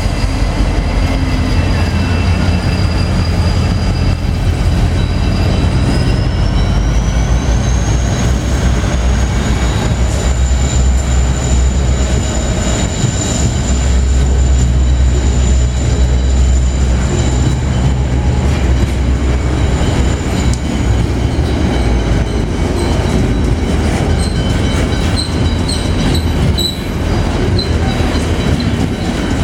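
Diesel-electric freight locomotives (NR, 93 and AN class) hauling a train away, with a steady deep rumble. A thin high whine rises about six seconds in, holds, and fades around twenty seconds. Faint high squeaks follow near the end.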